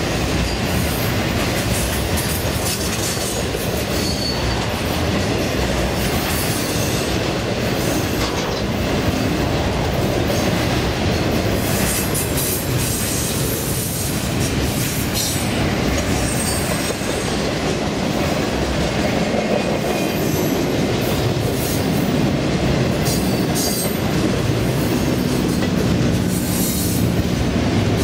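Freight train cars rolling steadily past on jointed track: a continuous rumble of steel wheels on rail, with clickety-clack over the joints and a few brief, thin wheel squeals.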